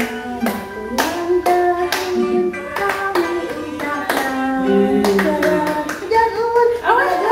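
People singing a birthday song together while clapping hands on the beat, about two claps a second.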